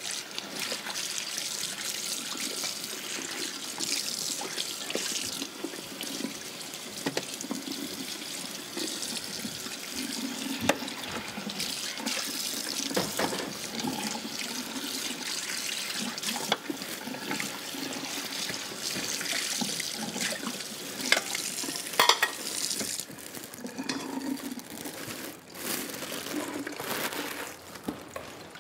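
Water running from a kitchen tap into a sink while a pan is washed, with a few sharp clinks of dishes; the flow runs steadily for most of the time and turns patchier near the end.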